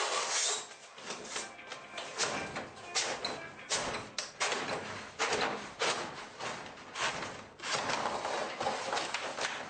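A vinyl-backed insulation panel being handled and pushed into a steel garage door section, with irregular scraping and rubbing and several sharp knocks against the door panel.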